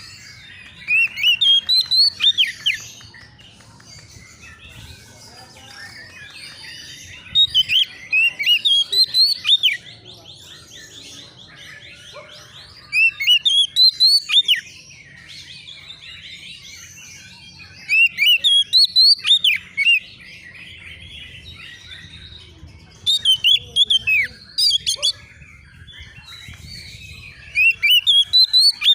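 Oriental magpie-robin (kacer) singing in short bursts of quick whistled notes sweeping up and down. There are six phrases of about two seconds each, coming roughly every five seconds.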